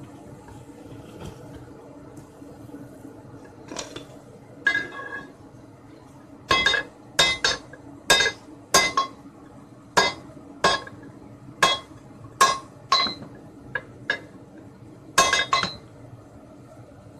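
Small sledgehammer striking a 19 mm steel reinforcing bar to straighten it: about fifteen ringing metallic blows at an uneven pace, starting about four seconds in, some in quick pairs.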